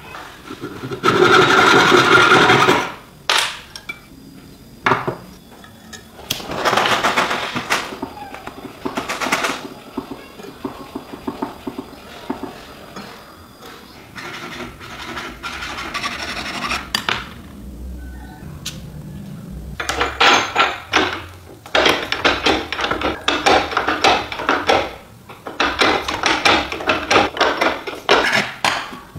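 Hand filing and abrading of a small metal ring: bursts of rasping strokes, several a second, with short pauses between them and a few sharp taps.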